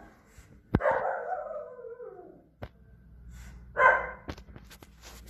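Dog vocalising: a drawn-out call falling in pitch about a second in, and a short sharp bark near four seconds, with a few sharp clicks between.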